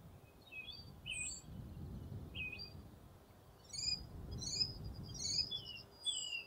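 Birds chirping: short, high notes and quick trills, coming thicker from about four seconds in, over a faint low background rumble.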